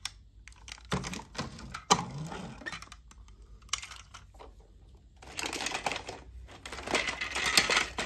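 Plastic and die-cast toy vehicles clattering and knocking together as a hand rummages through a tub of them. A few separate knocks come first, then a dense rattling clatter over the last three seconds.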